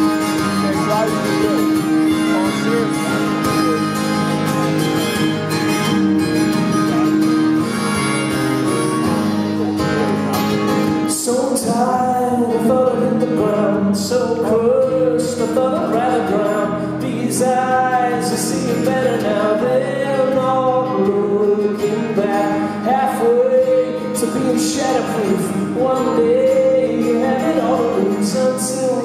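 Live solo acoustic set: an acoustic guitar played over the PA, with a man singing from about 11 seconds in after an instrumental opening.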